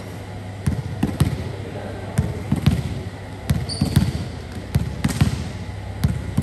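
A series of irregular thuds and knocks, coming in small clusters a few tenths of a second apart, with a short high squeak about halfway through.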